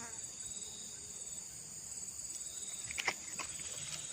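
Insects, crickets by their sound, trilling steadily in several high-pitched tones with a pulsing chirp on top. A few sharp clicks come about three seconds in.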